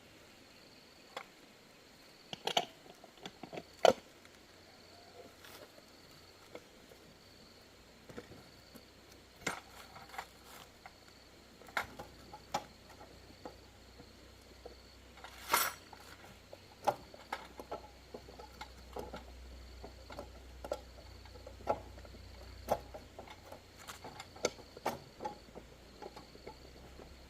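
Hand tools and wheel parts clinking and knocking at irregular moments during a tyre and inner-tube change, with sharper knocks about four seconds in and again near the middle. A faint steady high whine sits underneath.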